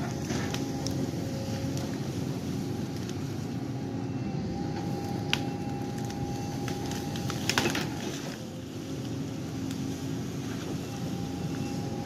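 Tracked excavator's diesel engine running steadily under load with a hydraulic whine. There is a sharp knock about five seconds in and a cluster of knocks and cracks around seven and a half seconds as the arm works in the brush. The engine eases off briefly after eight seconds and picks up again.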